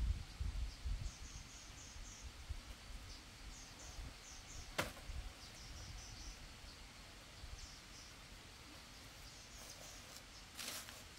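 Outdoor ambience of faint, short high-pitched chirps repeating throughout, with low rumble in the first second or so, a single sharp click about five seconds in, and a couple of knocks near the end.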